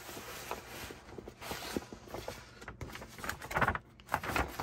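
Paper envelope being handled, rustling and crinkling in short strokes, with a louder cluster of crinkles near the end.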